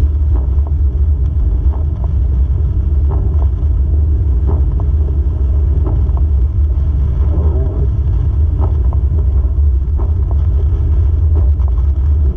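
Car driving on a wet road, heard from inside the car: a steady low rumble of engine and tyres with scattered light ticks.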